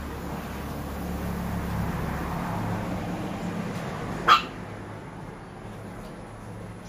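A dog gives a single short bark about four seconds in, over a low steady hum and a broad rush of background noise that swells and fades.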